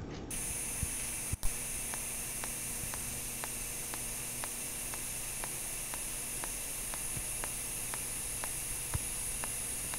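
TIG welding arc on thin 304L stainless steel, pulsed at about one pulse per second between 50 and 35 amps: a steady hiss that starts just after the beginning, with faint ticks about twice a second.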